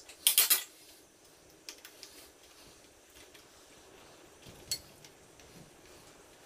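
Small metal tool and bicycle parts clinking while a kid's bike stem is worked on: a short burst of rattling clicks about half a second in, then scattered light clicks, with one sharp click near the five-second mark.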